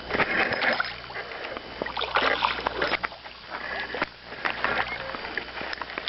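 Water splashing in several irregular bursts as a hooked walleye thrashes at the surface beside the boat while it is landed.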